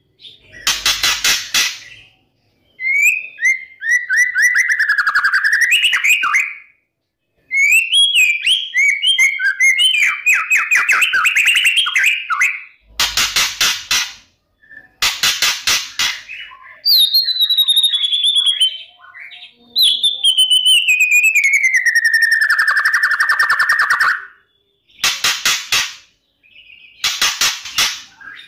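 White-rumped shama singing: five loud, rapid-fire rattling bursts alternate with long fast warbled trills, and one long whistled trill slides steadily down in pitch.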